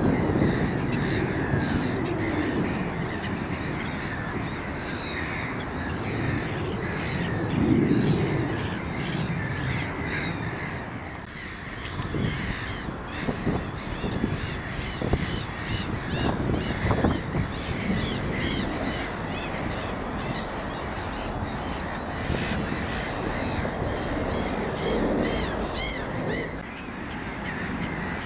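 Crows cawing repeatedly, with a run of calls near the end, over a steady low rumble.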